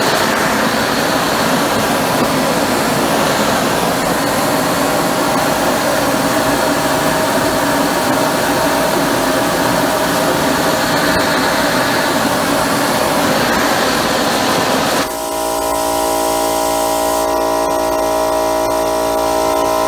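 Homemade torch-fired steam gun running full blast: a propane torch heating a water coil while the nozzle jets steam, making a loud, steady rushing noise. About fifteen seconds in the rush cuts off suddenly, leaving a steady electric motor hum.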